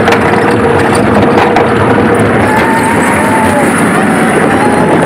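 Roller coaster ride heard from the moving train: a loud, steady rush of wind and track noise, with a thin tone that wavers and glides in and out now and then.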